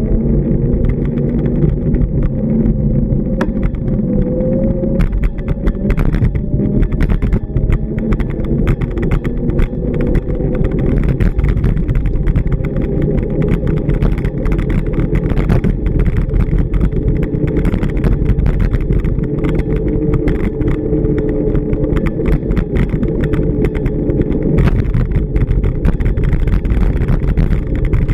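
Road traffic on a busy street: vehicle engines running close by, with a steady low rumble and an engine drone that drifts in pitch.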